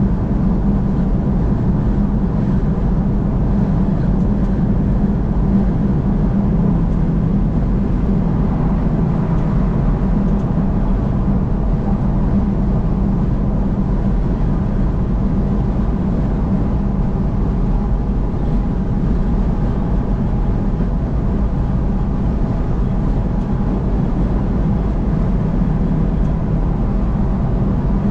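Car driving at highway speed: steady engine and tyre road noise, low and unchanging.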